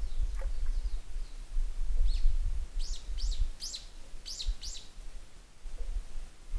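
Bird calling: a quick series of about six short, high notes, each falling in pitch, about two seconds in, over a steady low rumble.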